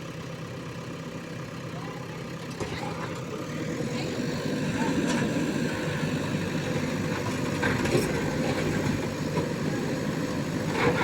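JCB 3DX backhoe loader's diesel engine running steadily, growing louder about four seconds in, with a few light clicks.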